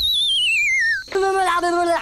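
Cartoon sound effect: a warbling whistle gliding down in pitch for about a second, the dizzy 'seeing stars' effect. Then a cartoon character's wordless voice.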